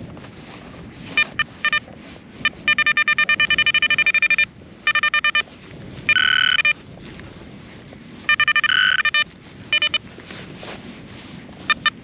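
Garrett Vortex VX9 metal detector sounding its target tone as the coil is swept back and forth: runs of rapid high beeps, about eight a second, with one longer steady tone about halfway through. It is signalling a target reading 55, which the detectorist judges not good.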